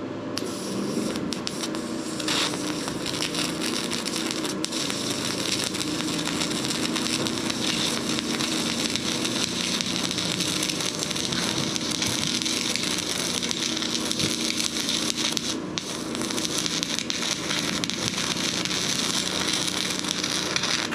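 Stick welding arc from a YesWelder Flux 135PRO at 90 amps burning a 1/8-inch E6011 rod on steel square tube: a continuous, dense crackle. The arc starts off rough, which is put down to the generator powering the welder having to build up voltage before it can deliver full current.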